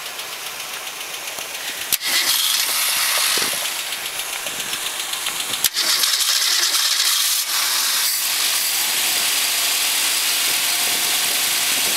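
1962 Ford Fairlane's 200 cubic-inch inline-six, freshly fitted with its rebuilt cylinder head, starting up and catching, then running steadily in the last few seconds.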